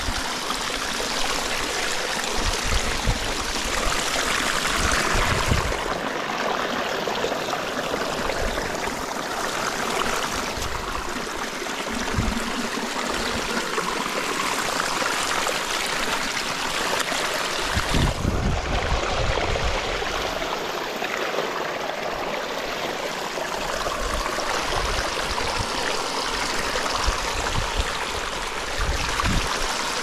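Canal water flowing, a steady continuous rush, with a few brief low rumbles, the longest about two-thirds of the way through.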